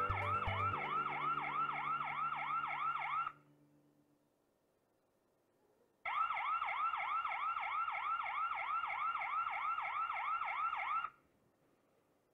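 Alarm siren from the built-in speaker of a Hikvision TandemVu PTZ camera (DS-2SE7C432MW-AEB), a fast repeating electronic wail of about three sweeps a second. It sounds for about three seconds, stops, then sounds again for about five seconds before cutting off.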